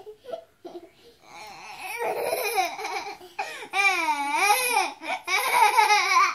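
Small children laughing, high-pitched and wavering, starting after about a second of near quiet and loudest in the second half.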